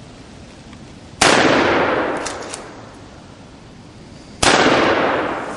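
Two shotgun blasts about three seconds apart, each a sharp loud crack followed by an echo fading over a second or more: shots fired at a gobbler turkey.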